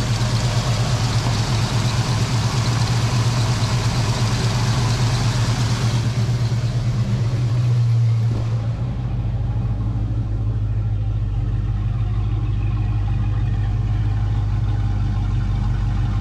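1985 Ford Mustang's 5.0 V8 idling steadily without surging, now that its clogged EGR valve has been cleaned. About eight or nine seconds in the idle gets a little quieter and smoother.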